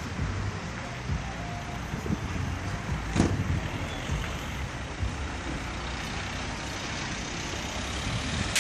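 Steady outdoor traffic noise with a fluctuating low rumble, and one short sharp knock about three seconds in.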